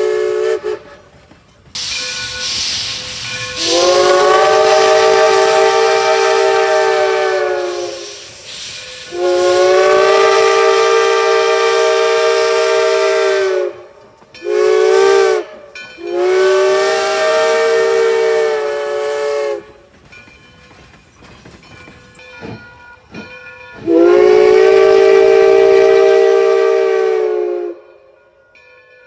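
Steam locomotive whistle sounding long, long, short, long blasts, the grade-crossing signal, then one more long blast near the end. A burst of steam hiss comes just before the first long blast.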